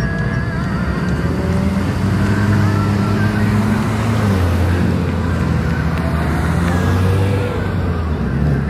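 Engines and exhausts of lowered cars rolling slowly past one after another, a steady low engine hum whose pitch drops and grows stronger about four seconds in as the next car comes by.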